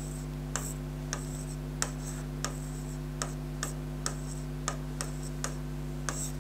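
Light, sharp clicks at uneven intervals, roughly two a second, over a steady low electrical hum.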